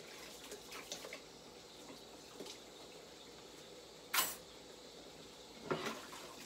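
Dishes being handled at a kitchen sink: a few light clinks, then a sharper clatter about four seconds in and a short ringing clink near the end.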